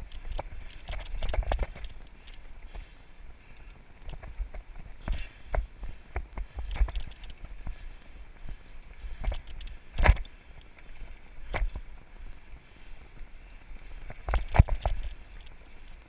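Mountain bike ridden fast down a dirt singletrack: tyres rolling over packed dirt and dry leaves, and the bike rattling over bumps, with wind rumbling on the camera microphone. Sharp knocks from hits on roots or rough ground, the loudest about ten seconds in and another a few seconds later.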